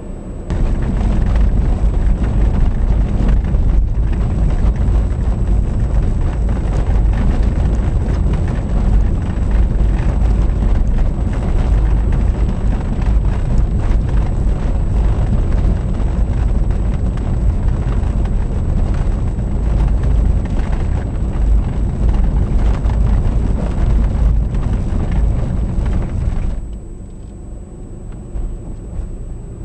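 Car driving, heard from inside the cabin: loud, steady road and wind rumble that drops suddenly to a much quieter level about 26 seconds in.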